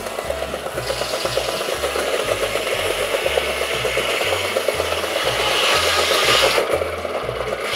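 A sawmill blade cutting through a log: a hissing whine that starts about a second in, builds, and stops abruptly near the end. Under it runs the steady rhythmic exhaust beat of the 1912 Case 110 steam traction engine driving the mill.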